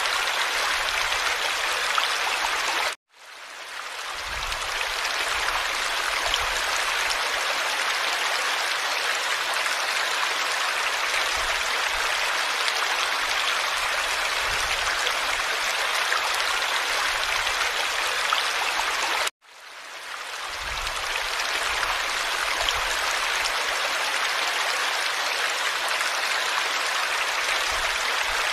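Steady rush of running water, like a stream. It cuts out abruptly about three seconds in and again near the end, each time fading back up over a second or two: a looped water recording restarting.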